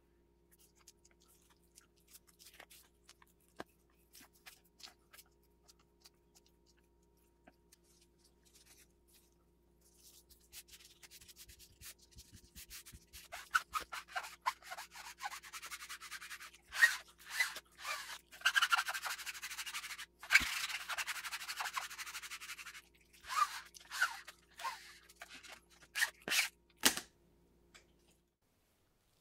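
Plastic squeegee scraping over a fabric sheet laid on resin-wet carbon fiber cloth. There are faint light strokes at first, then about ten seconds of dense, rasping back-and-forth scrapes, then a few separate strokes before it stops.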